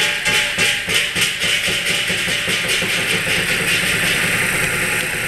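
Chinese lion-dance percussion, with drum and clashing cymbals playing a fast, steady beat of strikes.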